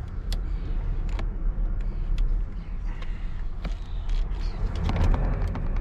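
Scattered light clicks and knocks of a steering-wheel nut and steering wheel being worked off the steering column by hand, more of them near the end, over a steady low rumble.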